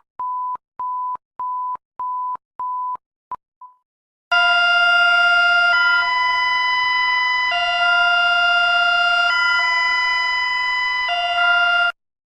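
Emergency alert tones. First comes a run of short single-pitch beeps, about two a second for three and a half seconds, ending in two shorter blips. Then, after a brief gap, a loud multi-tone alert chord switches back and forth between two chords every second or two and cuts off suddenly near the end.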